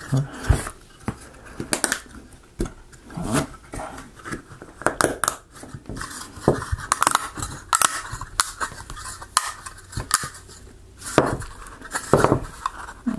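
Laser-cut plywood model parts clicking, knocking and scraping as a panel is pressed onto a tab-and-slot frame: a run of irregular sharp taps.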